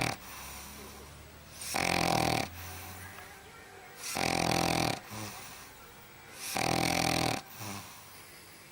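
Sleeping pug snoring: three loud snores about two and a half seconds apart, each lasting under a second, with quieter breathing in between.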